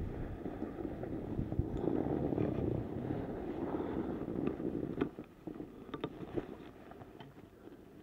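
Skis scraping and sliding over packed snow, with wind rushing over the action camera's microphone and a few sharp knocks in the middle; the noise fades away near the end.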